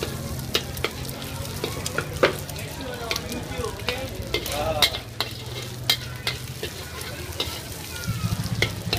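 Egg sizzling in a wok as it is stirred with a metal ladle, the ladle scraping and clinking sharply against the wok many times at an uneven pace, over a steady low hum.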